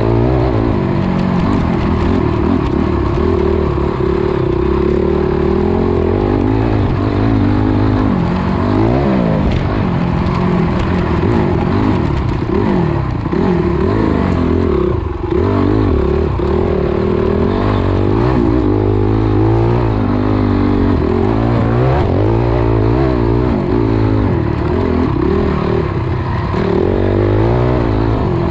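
Dirt bike engine revving hard and easing off again and again, its pitch climbing and dropping through the gears as it is ridden around a motocross track.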